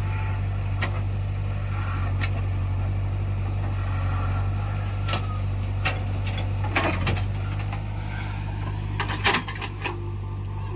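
Heavy diesel machine's engine running steadily at a low hum, with scattered sharp knocks and clanks, a short cluster of them near the end.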